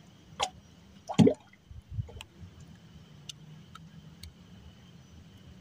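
A few short water plops and drips, the loudest just over a second in and dropping quickly in pitch. A few faint ticks follow.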